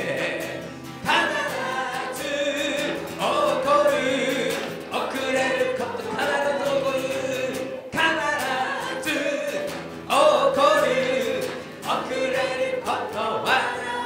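Japanese worship song: a woman sings lead into a microphone with guitar accompaniment, the congregation singing along, in phrases broken by short pauses.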